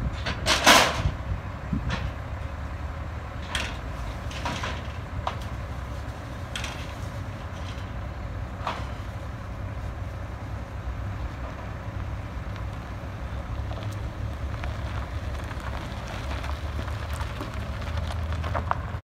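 Low, steady engine rumble as a Suzuki SUV is driven down off a car carrier trailer's ramps. A short loud burst of noise comes about half a second in, then scattered clicks and knocks.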